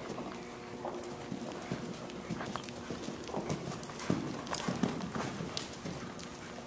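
A horse's hoofbeats on the sand footing of an indoor riding arena, a run of dull thuds as it moves under saddle, louder from about four seconds in.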